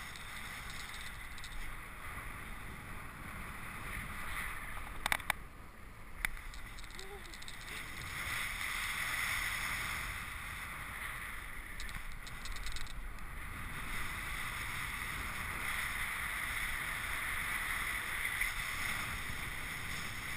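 Airflow rushing over the microphone of a handheld camera in paraglider flight: steady wind noise, a little stronger in the second half, with a couple of sharp clicks about five and six seconds in.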